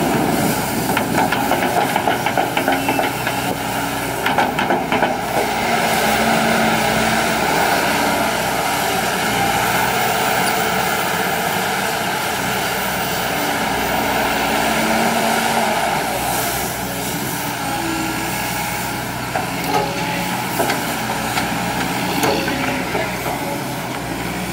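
Volvo EC210D crawler excavator working a dig cycle: its diesel engine and hydraulics run steadily under load, with scattered knocks and scrapes in the first few seconds as the bucket digs into the soil.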